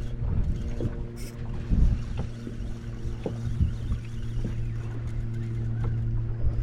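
Steady low hum of a boat motor, with scattered knocks and low thumps on the boat.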